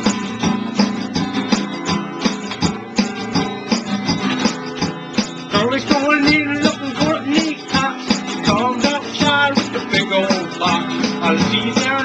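Music: strummed acoustic guitar with a steady beat.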